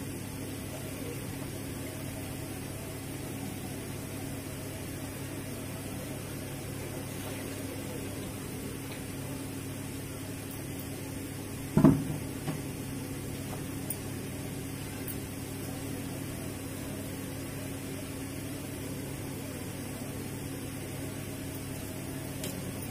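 Steady low electric motor hum, with one heavy thud about halfway through and a couple of faint knocks after it.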